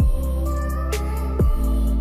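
Background music: a mellow electronic track with a steady beat of deep, booming kick drums and a sharp snare-like hit.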